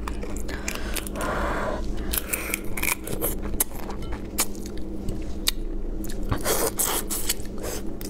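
Cooked spicy crawfish shells crackling and snapping as they are broken and peeled by hand, a run of short sharp cracks and scrapes.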